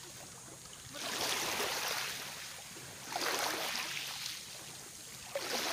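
Small waves lapping on a shallow beach, each wash swelling and fading away; three washes come about two seconds apart.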